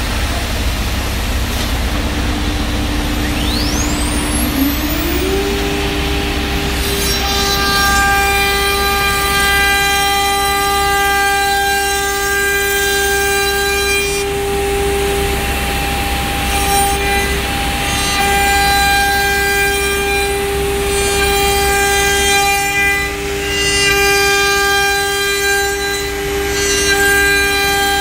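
CNC nesting router's spindle spinning up with a rising whine a few seconds in, then running at speed with a steady whine over a low hum while it routes a panel.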